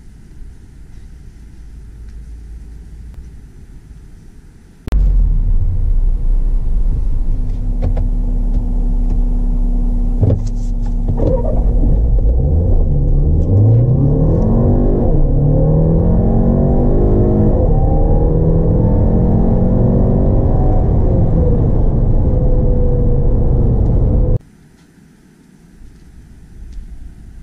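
Volkswagen Touran's 1.8 TSI turbocharged four-cylinder petrol engine, heard from inside the cabin on a full-throttle acceleration run. A low rumble first gives way about five seconds in to loud, steady engine noise. From about eleven seconds the pitch rises again and again as the car pulls up through the gears, before the sound cuts off abruptly near the end, leaving a low rumble again.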